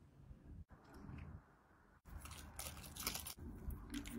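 Chopped spring onion sprinkled onto a plated dish of noodles, a light crackly rustle in short bursts that is loudest from about two seconds in.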